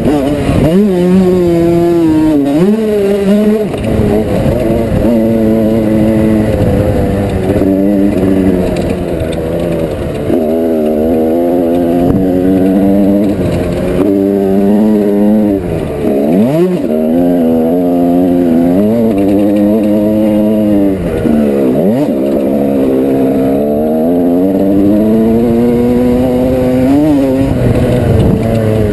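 1987 Yamaha YZ125's single-cylinder two-stroke engine revving hard under load around a motocross track. The pitch climbs and falls over and over, with several sharp drops where the throttle is chopped or a gear is shifted.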